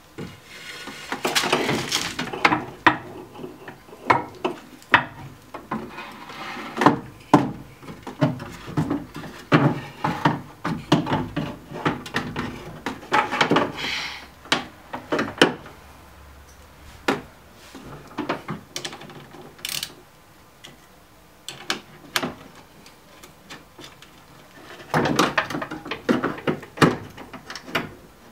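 A BMW E39 front window regulator being handled inside the door frame: its metal rails and motor bracket clank, rattle and scrape against the door's inner sheet metal in irregular knocks. The clatter comes in busier spells near the start, through the middle and again near the end.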